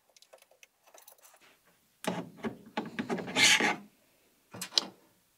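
Faint ticks as a screwdriver works at the screws on top of a 40W xTool diode laser module, then the metal-cased module scraping and rubbing as it is slid off its carriage mount, followed by two quick knocks near the end.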